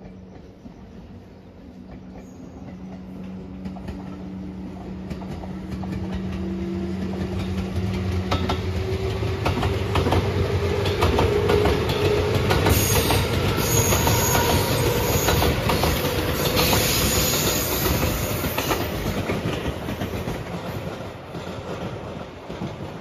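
JR 213-series electric train passing close by, growing louder as it approaches and fading as it goes, its wheels clacking over the rail joints. Under it runs a whine rising steadily in pitch as the train picks up speed. It is loudest and hissiest as the cars go past, about halfway through.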